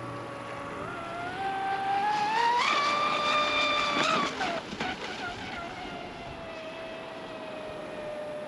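Brushless electric motor of a Pro Boat Sonic Wake V2 RC speedboat whining on a run. The pitch climbs about a second in and holds high for about a second and a half, then drops suddenly as the throttle comes off and settles to a steady lower whine.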